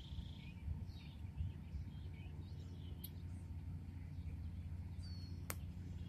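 Faint high bird chirps over a low steady rumble, with one sharp click about five and a half seconds in.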